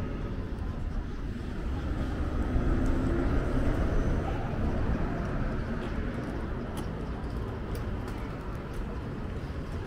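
City street traffic: a passing motor vehicle swells to its loudest about three to four seconds in and then fades, over a steady background rumble.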